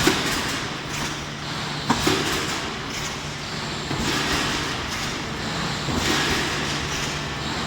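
Thermoforming machine running: a steady low hum under a broad hiss that swells and fades about every two seconds, with a sharp knock at the start and another about two seconds in.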